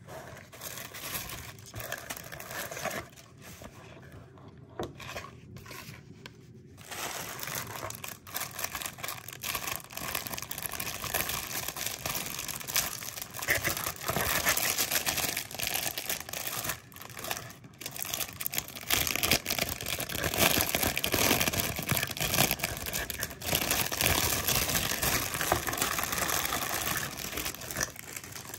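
Clear plastic packaging crinkling and rustling as hands pull it out of a cardboard mailer box and lift out a sealed plastic pouch. The crinkling is quieter and broken in the first few seconds and gets louder and more continuous from about seven seconds in.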